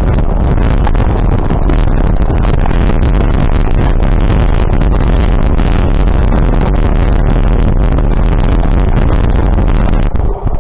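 Loud, steady rumble of a moving vehicle with wind buffeting the microphone. It drops off sharply about ten seconds in.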